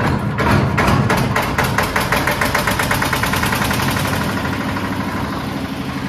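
Hand-cranked engine of a concrete mixer machine catching and starting: its beats come faster and faster over the first few seconds, then settle into steady running.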